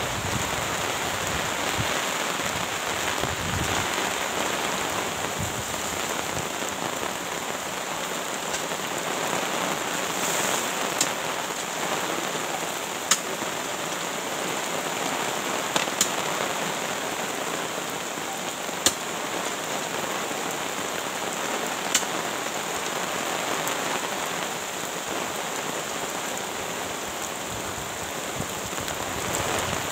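Steady rain falling on the ground and surroundings, with a handful of sharp clicks scattered through it several seconds apart.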